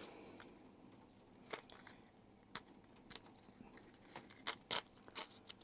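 Faint, scattered clicks and light taps from handling new Renata coin-cell batteries and their packaging, with a short cluster of clicks near the end.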